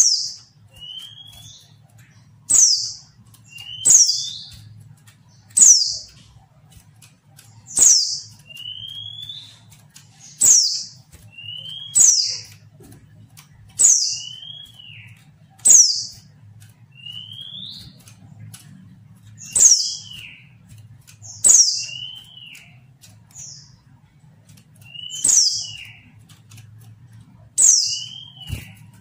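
Female white-eye (pleci) calling over and over, about once every two seconds: each call is a sharp, high falling note followed by a softer, lower short rising-and-falling note. This is the call used to provoke male pleci into calling.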